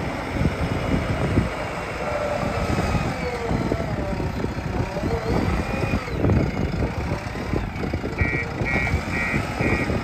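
JCB 3DX backhoe loader's diesel engine running under working load, with a rumbling, uneven drone. About eight seconds in, a reversing alarm starts beeping, a little over two beeps a second.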